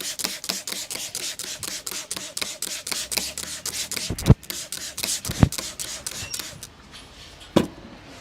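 A barber's hands slapping rapidly and rhythmically on the head during a head massage, about six or seven strikes a second with a few harder slaps among them. The slapping stops a little before the end, followed by one single hard slap.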